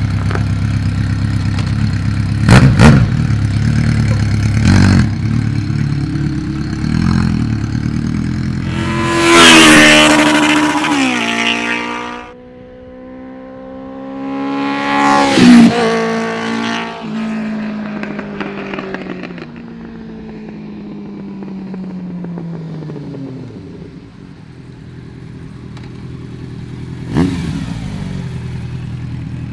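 Honda CB Seven Fifty's air-cooled inline-four running through a new, loud aftermarket exhaust: idling with a few sharp throttle blips, then revving hard as the bike rides off. It comes past again, pitch falling as it moves away and fades, with a short burst of engine noise near the end as it passes close.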